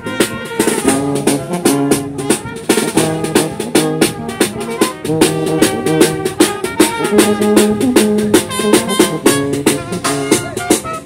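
Brass band playing a lively tune: tubas and euphoniums carry the low line and cornets the upper parts, over a busy, steady drum beat.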